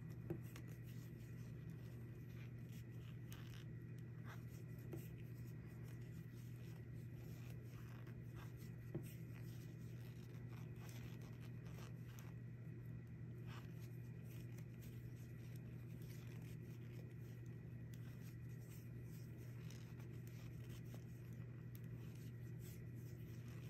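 Knitting needles clicking and tapping faintly against each other, with light scratchy rubbing of yarn as stitches are purled, over a steady low hum. Two sharper ticks stand out, one right at the start and one about nine seconds in.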